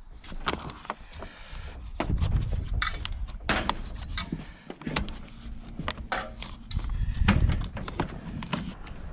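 Greenhouse wiggle wire being pushed by hand into a metal lock channel: a string of irregular sharp metallic clicks and scrapes as the zigzag spring wire seats in the track, over a low rumble.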